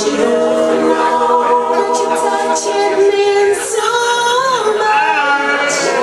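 A song with a singer holding long, sustained notes that waver in pitch near the middle and again near the end.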